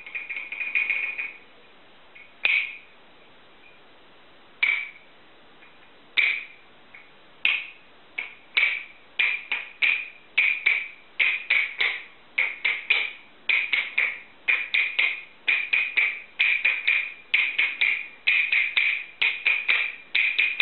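A high, ringing percussive tone struck over and over. It comes in a quick run at first, then only a few lone strikes seconds apart, then ever faster runs of several strikes a second.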